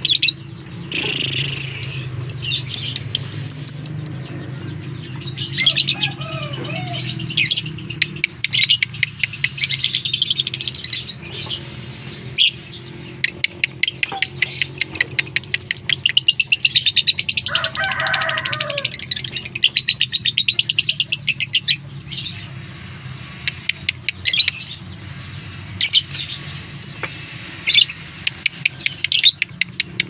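Fischer's lovebird chattering in fast, high-pitched trills: runs of rapidly repeated chirps, the longest lasting several seconds through the middle, broken up by short single calls.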